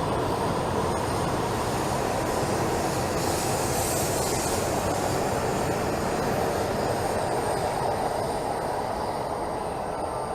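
A Shinkansen train running along a station platform. A high hiss rises briefly about four seconds in, and the noise eases off near the end.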